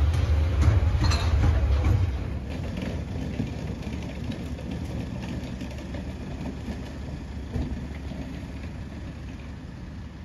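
Intermodal container freight train's wagons rumbling past on the track, with scattered clicks. About two seconds in, the loud rumble drops away to a quieter, steady low rumble.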